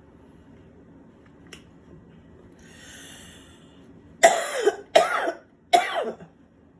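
A person coughing three times in quick succession, each cough sharp and loud.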